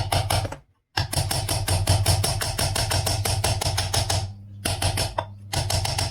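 Rapid, evenly spaced knocking, about eight a second, over a steady low hum, in three runs, from a power tool driving in the screws that seat the ceiling fan's two casing halves together.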